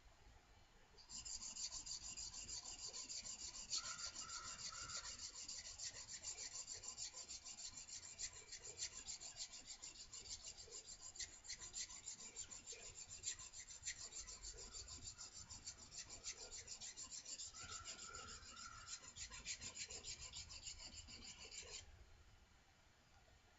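Steel block plane blade being honed freehand on the 400-grit side of a diamond sharpening plate: rapid, steady scraping strokes of the blade across the plate. They start about a second in and stop shortly before the end. The edge is being worked until a burr forms.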